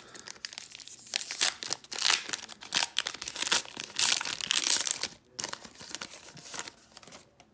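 Foil Pokémon booster pack wrapper being torn open and crinkled: dense crackling for about five seconds, dying down to lighter rustling.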